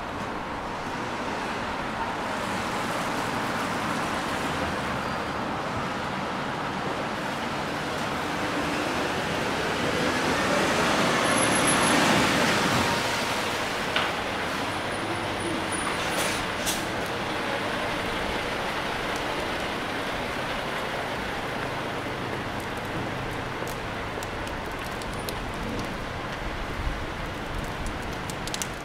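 City street traffic noise, with one vehicle passing close: it swells to its loudest about twelve seconds in, then fades back into the steady hum of the street.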